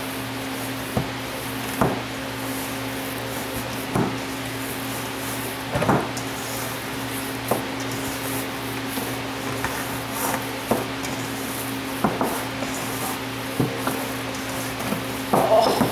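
Hands kneading and squishing raw ground beef and Italian sausage in a stainless steel bowl, with a soft slap or knock every second or two, over a steady low hum.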